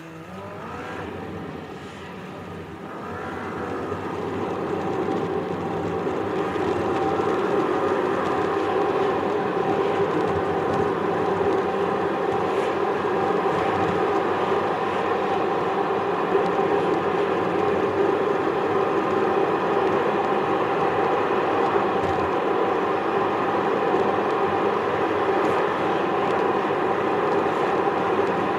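Car engine and tyre noise inside the cabin. It rises as the car pulls away from a stop over the first few seconds, then settles into a steady drone at cruising speed.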